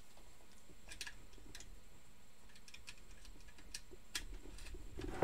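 Scattered faint clicks of a computer keyboard being worked, coming irregularly a few times a second. A short low thump comes at the very end.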